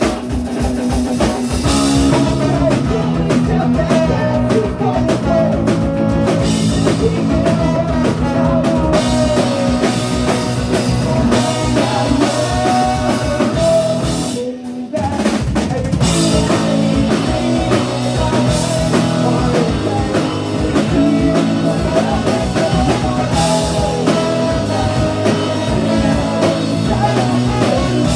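Ska-punk band playing live, loud: a fast drum kit and guitars, with a brief stop about halfway before the full band comes back in.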